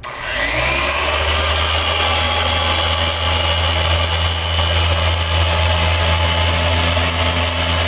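Handheld electric power sander on a wet-sanding pass over a fiberglass boat's gel coat. It speeds up over about the first second, then runs steadily with a low hum and a high whine.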